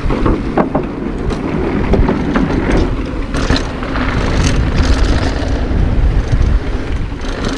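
Mountain bike riding fast down a rough dirt trail: heavy wind rumble on the microphone over tyre noise, with frequent short clicks and knocks as the bike rattles over bumps.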